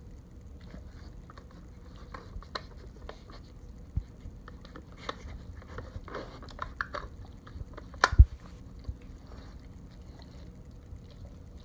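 Dog working a plastic treat-puzzle board: scattered small clicks and taps of its nose and teeth against the plastic lids and pieces, with a pair of sharp plastic knocks about eight seconds in as a lid is flipped over, and the dog chewing treats.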